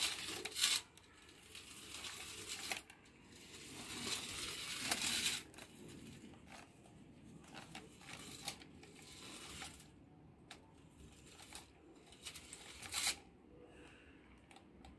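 Motorised toy robot on a wired remote moving across the floor: its small geared drive motor whirs in several bursts of a second or two, with plastic clicks and rattles in between.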